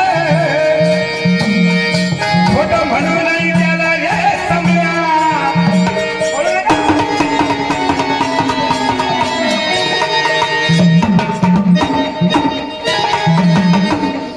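Traditional Marathi gondhal folk music: a hand-drum rhythm pulsing under a melodic instrumental line.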